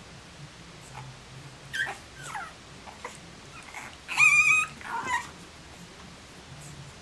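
Six-week-old Boston Terrier puppies whimpering: a few short, falling whines, then a loud, high, wavering cry about four seconds in and a shorter one just after.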